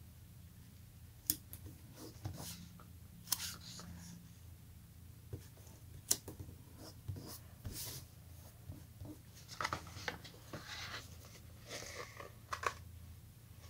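Washi-tape stamp pieces being handled and pressed onto a paper notebook page: soft paper rustles and scattered light clicks and taps, with a longer run of rustling about ten seconds in as the notebook is moved. A faint low hum runs underneath.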